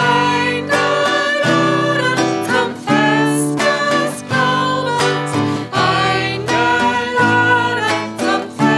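Two women singing a German church song, accompanied by a man playing acoustic guitar.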